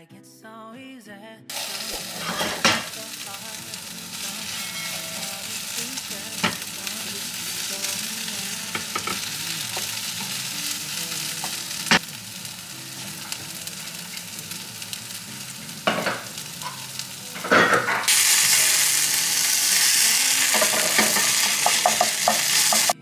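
Food sizzling in hot oil in a pan on a gas cooktop, with a few sharp knocks against the pan. The sizzle steps up louder about three-quarters of the way through.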